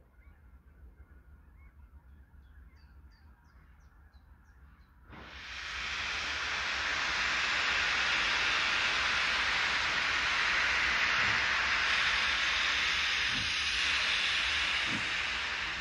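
P36-class steam locomotive venting steam: after a quiet start, a loud, steady hiss of steam begins suddenly about five seconds in and keeps on, with a few low thumps near the end.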